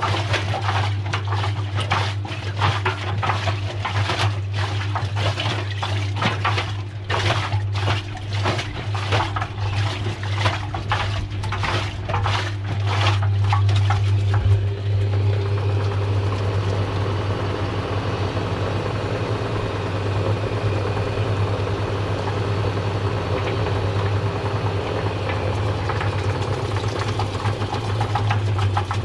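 Washing machine with a steady low hum, rapid knocking and clattering for the first half, giving way about halfway through to a steady rush of water.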